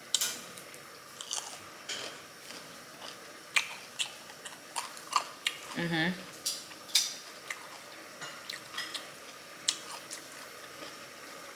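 Close-miked chewing and lip smacking of a mouthful of broccoli, with many short wet clicks and a few utensil taps, and a short hum from the eater about six seconds in.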